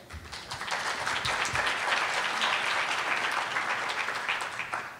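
Conference audience applauding, building up over the first second and dying away near the end.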